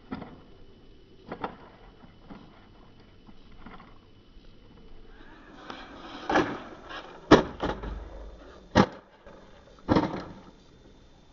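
Carrera RC Fire Fighter monster truck tumbling and bouncing on a lawn: about half a dozen separate knocks and thumps, most of them in the second half, with the loudest a little past the middle.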